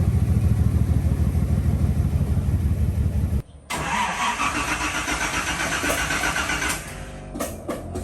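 Nissan 300ZX's V6 engine running with a loud, low pulse. It cuts off abruptly about three and a half seconds in, and a higher-pitched engine sound follows that fades near the end.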